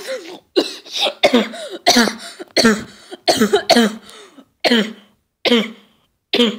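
A person coughing over and over, about nine short hoarse coughs with voice in them, the pauses between them lengthening slightly toward the end.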